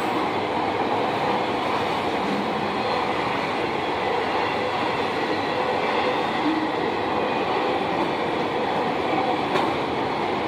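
Freight train of autorack cars rolling past steadily over the crossing.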